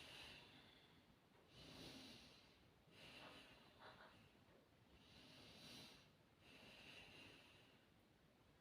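A woman taking slow, deep breaths, heard faintly as a series of long hissing inhales and exhales, each lasting a second or more.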